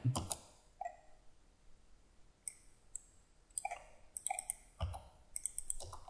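Faint clicks of computer keyboard keys, the Enter key pressed several times at irregular intervals, some presses in quick pairs.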